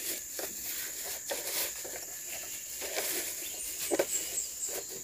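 Plastic packaging rustling and crinkling in short handling noises as a small blue scale is unwrapped, over a steady high-pitched insect drone.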